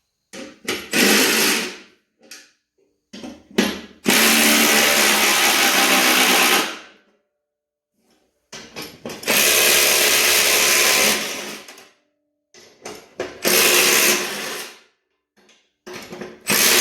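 Power tool driving a 13 mm socket, run in about five loud bursts of one to three seconds with short trigger blips in between, backing out the rusted bolts that hold the mower deck's spindles. The bolts are snapping off rather than unscrewing.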